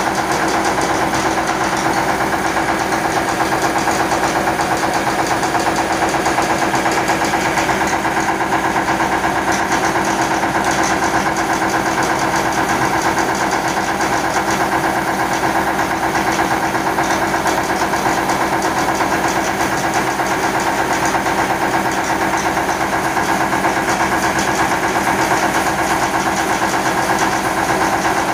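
YMM20 rice mill running steadily under load, driven by a Yanmar TF300 single-cylinder diesel engine, with its grain elevator working: a loud, even mechanical din over the engine's fast, steady beat.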